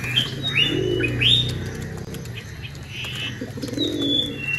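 A male pigeon cooing twice, about a second in and again near the end, with quick high chirps from other birds over it.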